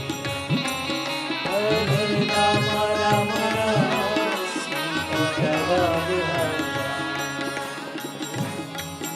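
Indian devotional music: tabla drumming under a pitched melodic line, loudest through the middle of the stretch.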